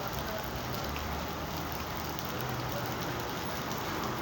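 Heavy rain falling steadily: a dense, even hiss with many small drop impacts, over a low steady rumble.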